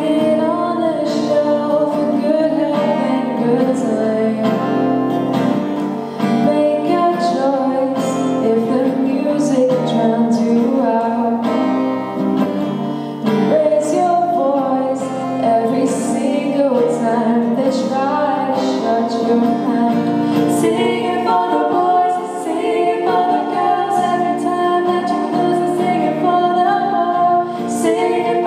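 A song: a woman singing to a strummed acoustic guitar.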